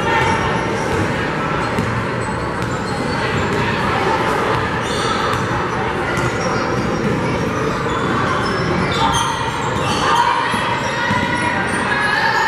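Basketball being dribbled on a hardwood gym floor, repeated thumps over the steady din and voices of the gym.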